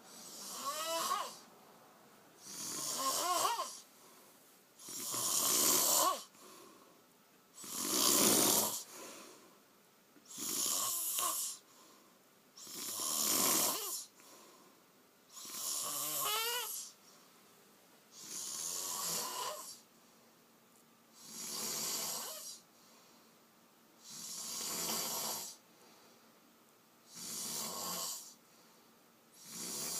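A man snoring heavily in a drunken sleep, one snore on each in-breath about every two and a half to three seconds, some with a short rising whistle in them.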